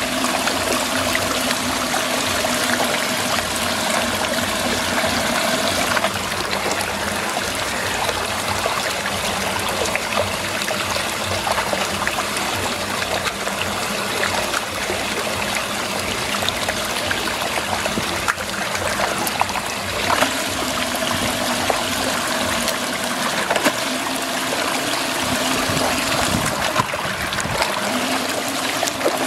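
Water swirling and draining down a whirlpool's vortex hole: a steady, even rush of running water.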